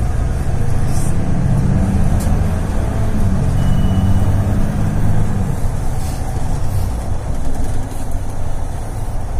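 Interior noise of a Mercedes-Benz Citaro city bus under way: a steady low engine drone with road and tyre noise. A pitched engine note is strong through the first half and fades about five and a half seconds in, with a few brief hisses and rattles above.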